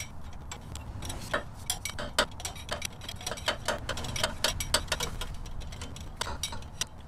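Irregular light metallic clicks and clinks, a few a second, from a 22 mm wrench turning and re-seating on the nut of a needle-bearing extractor. The nut is being tightened to draw the CV axle needle bearing out of a Toyota 7.5-inch clamshell front differential.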